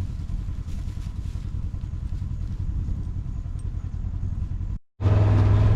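A vehicle engine running with a steady low rumble. It cuts out abruptly about five seconds in, then comes back as a louder, steady engine hum.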